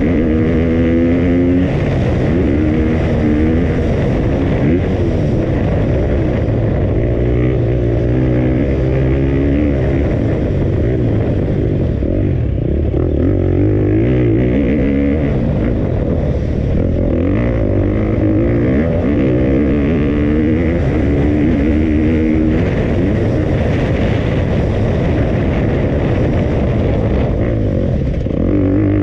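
2020 KTM 250F motocross bike's four-stroke single-cylinder engine at full ride, revving up and dropping back again and again as it accelerates and shifts on the track, heard from a helmet-mounted camera.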